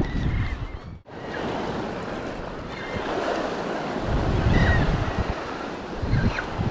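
Sea waves washing, with wind on the microphone that grows heavier from about four seconds in; a few short bird calls sound over it. The sound drops out briefly about a second in.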